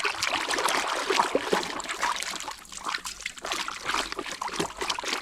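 Water trickling and splashing as toys are washed, with many small clicks and knocks through it.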